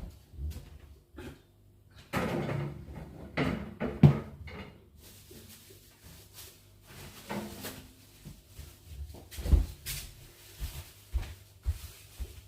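Kitchen handling sounds: a fridge or cupboard door being opened and shut, with containers being put away. A clatter from about two seconds in ends in a sharp knock about four seconds in, and another thump comes near ten seconds.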